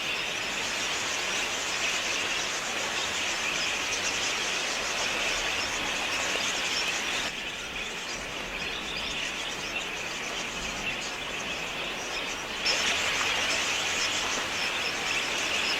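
Dense, continuous chattering of a large flock of budgerigars gathering to drink. The sound drops a little about seven seconds in and comes back louder near thirteen seconds in.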